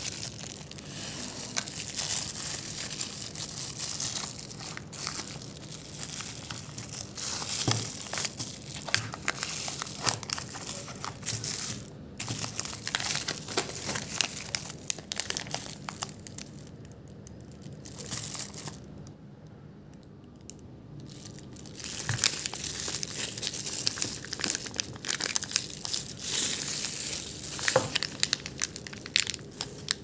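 Tissue paper and clear plastic wrapping crinkling and rustling as they are handled and pulled off a belt. There is a quieter pause about two-thirds of the way through, then the crinkling starts again.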